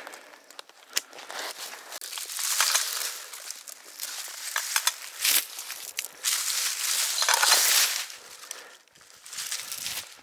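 Rustling and crunching of dry brush, coming in rough bursts that are loudest about two to three seconds in and again between six and eight seconds in.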